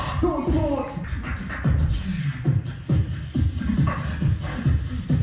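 Live vocal beatboxing: mouth-made bass-drum hits about twice a second, each with a falling low tone, with vocal pitch slides in the first second.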